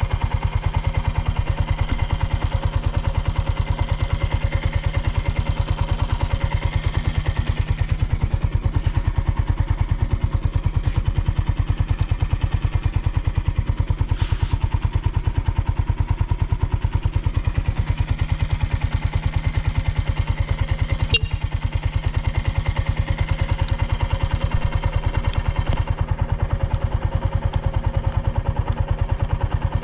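Suzuki Volty's 250 cc air-cooled single-cylinder engine idling steadily and evenly, with no abnormal noise. There is one short click about two-thirds of the way through.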